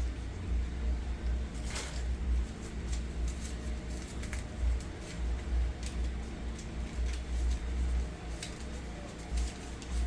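Hair rods being unrolled and pulled out of curled hair: scattered light clicks and rustles, the sharpest about two seconds in, over a steady low rumble.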